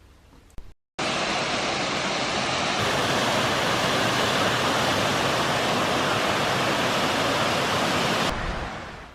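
Waterfall: a steady rush of falling water. It cuts in suddenly about a second in, holds even, and fades away near the end.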